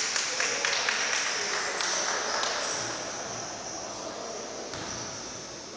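Basketball game in a gym: sneakers squeaking on the hardwood court, with a run of sharp knocks in the first two seconds or so, over a steady echoing hubbub from the hall.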